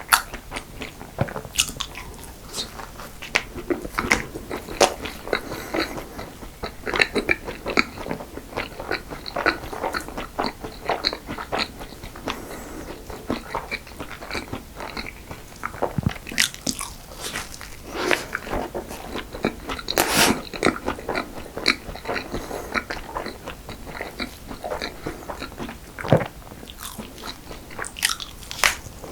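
Close-miked eating of cream cake and crunchy-topped choux pastry: steady biting and chewing with many sharp crunches and clicks, a few louder crunches in the middle and near the end.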